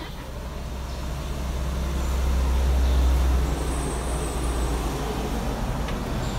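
Low engine rumble of a heavy vehicle, swelling to a peak about three seconds in and then easing off.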